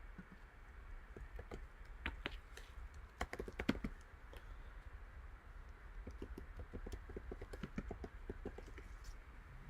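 Typing on a computer keyboard: a burst of keystrokes about two seconds in, then a longer run of quick, lighter keystrokes from about six to nine seconds.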